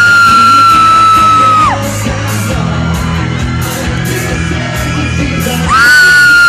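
Live pop-rock band playing loudly in a large hall, with a fan near the microphone letting out a long, high, held scream twice, the loudest thing heard.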